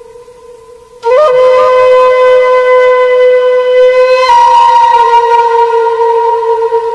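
Music: a wind instrument plays long held notes. A loud note starts with a short upward scoop about a second in, over a quieter sustained tone. A little past four seconds it steps slightly lower and holds.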